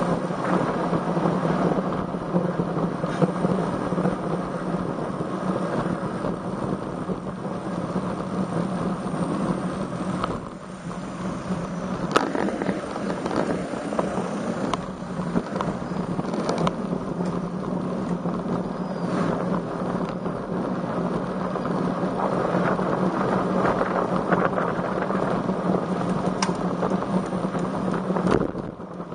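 Wind buffeting the microphone of a camera on a moving road bicycle, a steady rushing noise with a low hum beneath, easing briefly about ten seconds in and again near the end.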